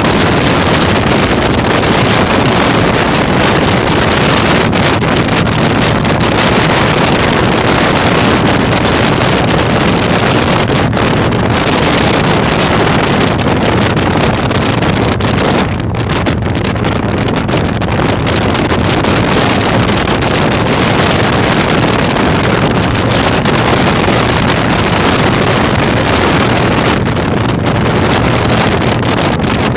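Heavy wind noise on the microphone of a moving motorcycle, over the steady running of a Yamaha Virago 1100's V-twin engine.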